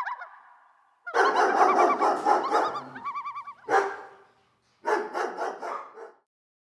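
Dogs barking and yelping in three bursts, with several wavering calls overlapping, cutting off about six seconds in.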